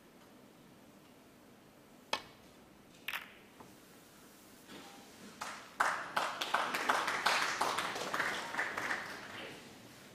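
A snooker cue tip strikes the cue ball with a sharp click about two seconds in, and a second ball click follows about a second later. From about six seconds in the arena crowd applauds for about four seconds, fading out.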